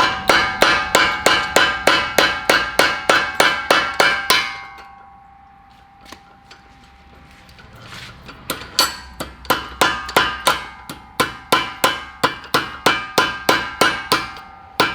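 Hammer striking metal in quick, even blows about three a second, each with a ringing clang. The blows stop for about four seconds in the middle while the ring dies away, then start again.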